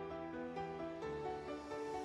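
Background music: a melody of held notes moving in steps over a sustained bass note.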